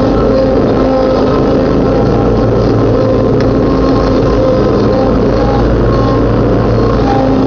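Riding lawnmower engine running steadily under load while cutting tall grass.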